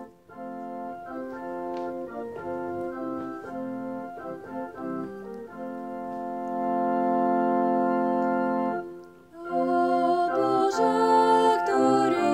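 Organ playing the introduction to a congregational hymn in sustained chords. A long held chord breaks off briefly about nine seconds in, and the playing then resumes fuller and louder.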